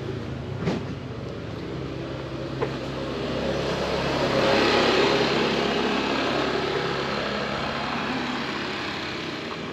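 A car driving past on the road. Its engine and tyre noise grow to loudest about halfway through, then fade away.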